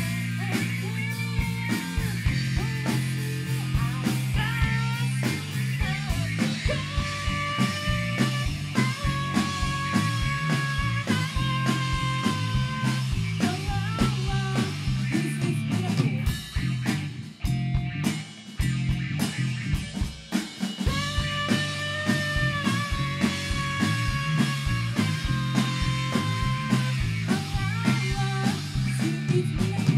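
Rock band playing live: a woman singing lead over electric guitar, electric bass and drum kit, with a short drop in the middle before the full band comes back in.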